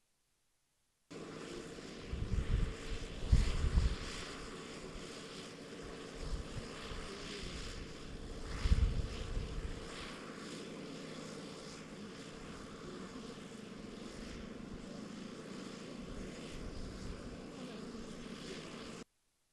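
Steady outdoor background noise with low gusts of wind buffeting the microphone, strongest about two to four seconds in and again near nine seconds. The sound cuts in and out abruptly.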